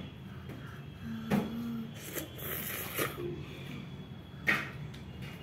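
A few light clicks and knocks of a plastic spoon against a plastic bowl as a small child is fed noodles, about four taps spread over a few seconds.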